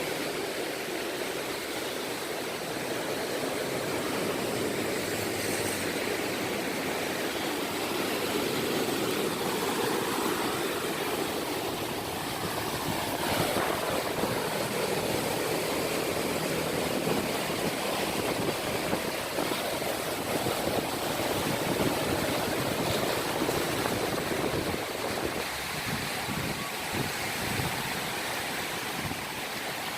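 Sea water washing and rushing steadily, a continuous noise without breaks.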